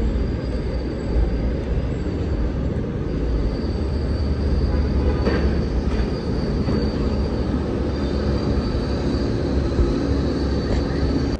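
A heavy vehicle rumbling close by, deep and steady, with a thin high-pitched whine held above the rumble. It cuts off abruptly at the end.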